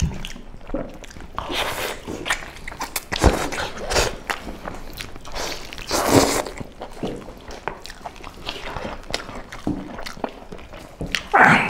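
Several people eating mutton leg and rice with their hands: chewing, biting and smacking, with meat being torn from the bone, heard as irregular clicks and wet noises and a few louder bursts.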